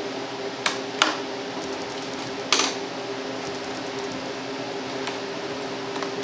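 Three sharp metallic clicks in the first few seconds, with fainter light ticking later, as small steel hinge screws and a hinge are handled on a wooden cabinet lid. Underneath runs a steady background hum.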